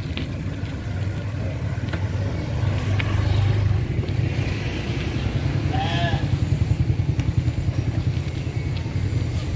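Motorcycle engine running close by, a steady low rumble with a fast pulse that swells and fades. A short call cuts in about six seconds in.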